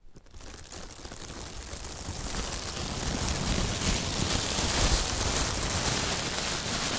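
Intro-animation sound effect: a dense crackling, rain-like hiss that fades in from silence, swells over the first three seconds, then holds steady.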